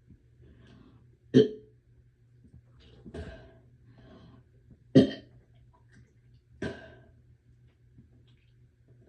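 A person gagging: four short, sharp throaty gags about every one and a half to two seconds, the first and third much louder than the others.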